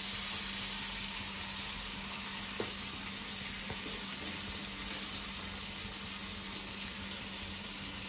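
Small masala-coated pallathi (orange chromide) fish frying in hot oil with curry leaves in a small pan, giving a steady sizzle, with a faint steady hum underneath.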